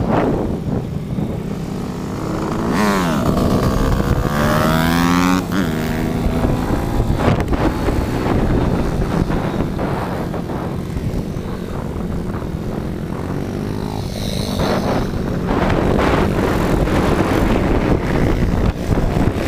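YCF SP2 160 pit bike's small single-cylinder four-stroke engine heard from onboard, revving hard and easing off through track corners. Its pitch climbs steeply a few seconds in under acceleration and again near the end.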